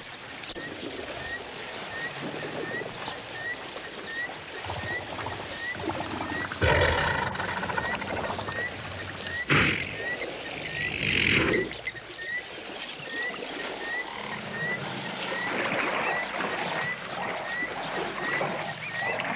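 African elephants bathing in a waterhole: water sloshing and splashing with low rumbling calls, and three louder outbursts, one about a third of the way in and two more just past the middle. A faint high chirp repeats about twice a second in the background.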